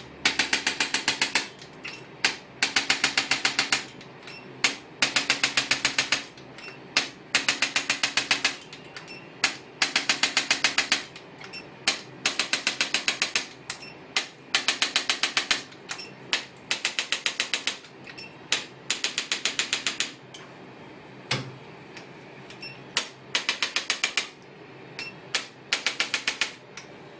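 Chiropractic adjusting gun firing in bursts of rapid mechanical clicks, about ten a second, each burst lasting a second or so with short pauses between, as it delivers impulses along the spine.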